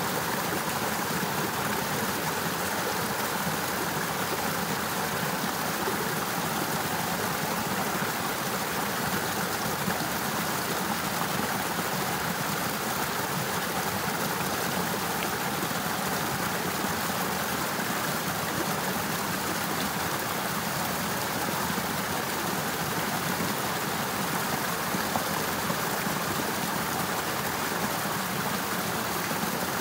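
Steady rush of water running in a partly frozen, icicle-lined river.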